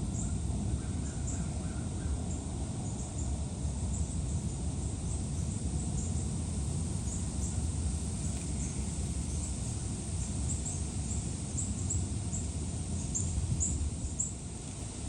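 Wind buffeting the microphone: a steady low rumble. Many short, faint high bird chirps come and go above it.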